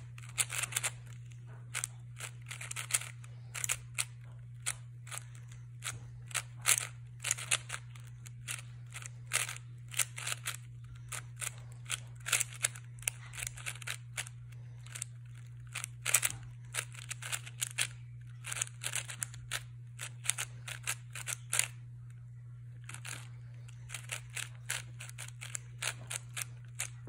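Plastic 4x4 Rubik's-style cube being turned by hand: irregular runs of sharp clicking layer turns with short pauses between them. A steady low hum sits underneath.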